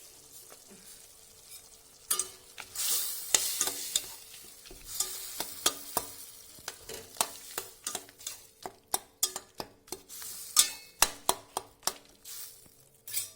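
A spoon stirring tomatoes, garlic and whole spices as they fry and sizzle in oil in a pan, with frequent sharp clicks of the spoon against the pan. The stirring starts about two seconds in.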